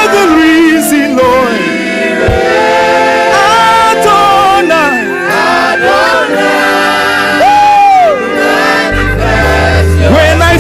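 Gospel worship choir singing in layered voice parts, with sliding vocal runs over held harmonies. A deep bass comes in about nine seconds in.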